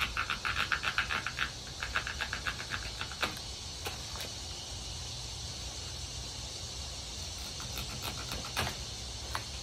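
A small animal's fast chirping trill, many short even chirps in quick succession, strongest in the first second and a half and coming again more faintly, with a few sharp clicks later on.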